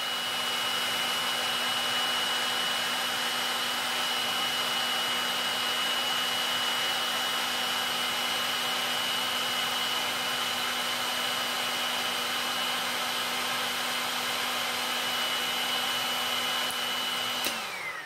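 Heat gun blowing steadily with a thin high whine. It is switched off near the end, and its fan winds down with a falling pitch.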